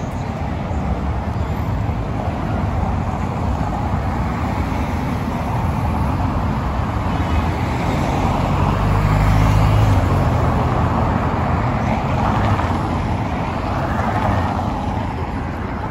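Steady city traffic: cars and vans driving along a cobbled avenue. A low engine rumble swells as a vehicle passes close about nine seconds in, then eases off.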